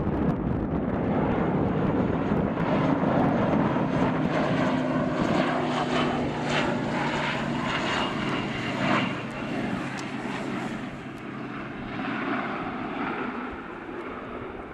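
Fokker 50 twin-turboprop airliner flying low past on landing: a steady propeller drone with a low hum. It is loudest in the first half and fades from about nine seconds in as the aircraft moves away along the runway.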